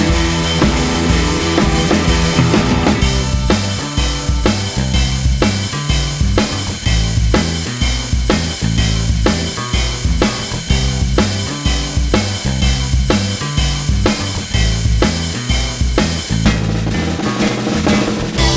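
Background music with a steady drum beat and bass line. The drums drop out briefly near the end.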